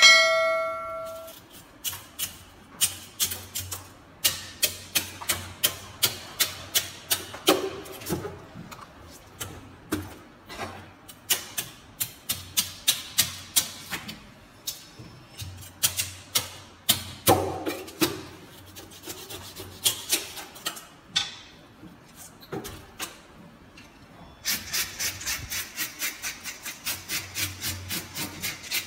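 A short chime, then a long run of sharp clicks and taps, two or three a second, from a knife working along a large golden trevally on a plastic cutting board. Near the end it changes to a fast, even rasping scrape, about four strokes a second, as a plastic fish scaler strips the scales.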